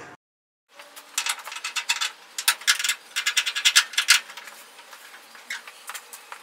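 Quick, irregular clicks and scrapes of hands and a small tool fastening a park light housing under the front edge of a pickup's hood. The sound starts after a brief gap, is busiest for the first few seconds, then thins to scattered clicks.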